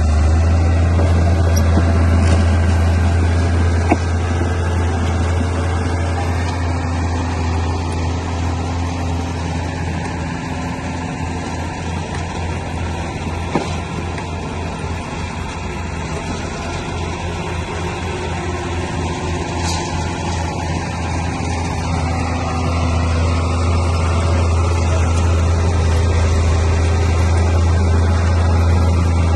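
A bulldozer's heavy diesel engine runs with a deep, steady drone. It eases off through the middle, where a quick throb can be heard in it, then works back up near the end. Two brief sharp clicks stand out over it.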